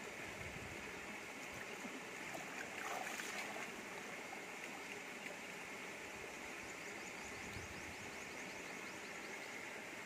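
Shallow river running steadily over rocks.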